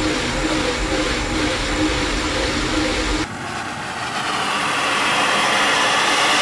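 A steady rumble with a faint low hum, then, about three seconds in, a sudden change to a loud, steady hiss of steam venting from the cylinder drain cocks of a cog-railway steam locomotive, growing a little louder.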